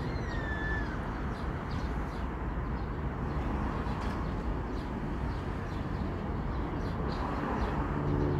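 Outdoor trackside ambience: birds chirping in short repeated notes over a steady low rumble, with one long falling call in the first second. In the last second a low engine hum starts to build as a train approaches.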